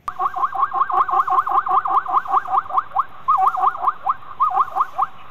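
A rapid series of repeated yelping animal calls, about six a second, each sliding up and down in pitch, broken by short pauses in the second half.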